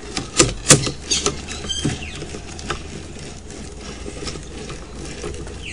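Irregular clicks and rattles of a sewer inspection camera rig as its push rod is fed down the pipe. The clicks are sharpest in the first second or so, then thin out to light ticking.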